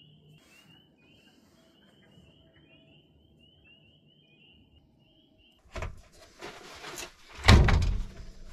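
Faint high chirps repeated a few times a second, then from about six seconds in a clatter of knocks and one loud thump as a towel and a metal griddle plate are handled on a camper's stove top.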